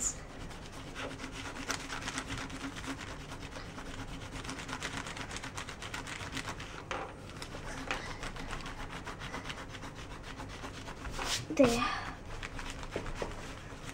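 Rubber eraser rubbed quickly back and forth on notebook paper, erasing pencil guidelines: a continuous scratchy rustle of many short strokes.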